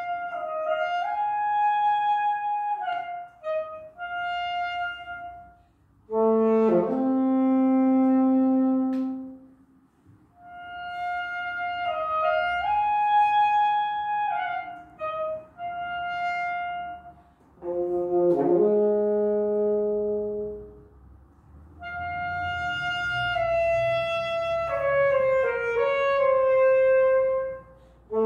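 Unaccompanied saxophone playing a slow melody in phrases with short breaths between them: a higher phrase that comes back about halfway through, alternating with phrases that drop to low held notes.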